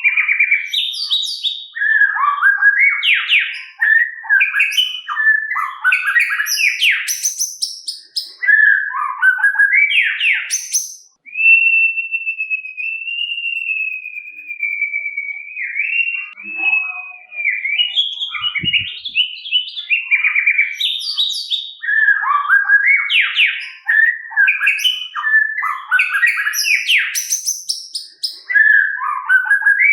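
White-rumped shama (murai batu) singing a loud, rich song of rapid, varied whistled phrases and trills, with one long, slightly wavering whistle held for several seconds about a third of the way through.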